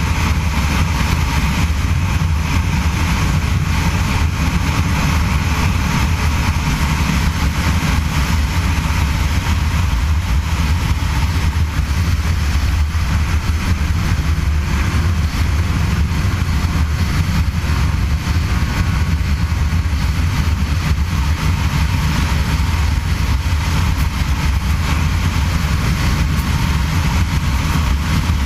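Snowmobile engine running steadily under way: a loud, constant drone with no change in pitch or level.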